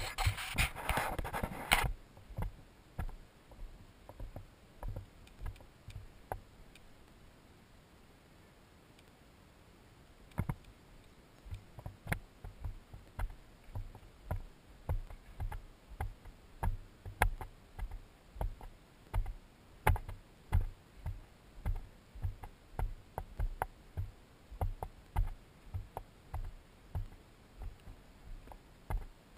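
A hiker's footsteps on a dirt trail, heard as dull thumps with faint crunches at a walking pace of about two a second. In the first two seconds there is a loud rustling of something brushing against the microphone, and the steps fade out from about six to ten seconds in before starting again.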